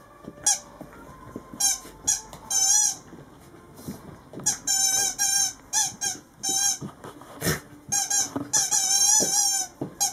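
A dog biting and chewing a squeaky plush toy, making it squeak over and over in irregular bursts of short squeaks and longer wavering ones. There is a single dull thump about three-quarters of the way through.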